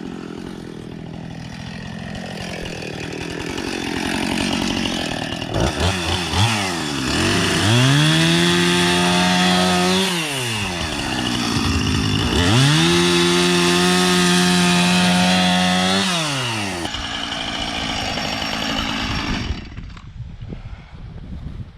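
Small high-revving engine running at a lower speed, then throttled up to full speed twice, each time held for a few seconds before dropping back, and dying down near the end.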